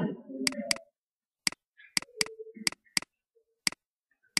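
Stylus tip clicking against the writing surface of a digital whiteboard as words are hand-written: about nine sharp, irregularly spaced clicks.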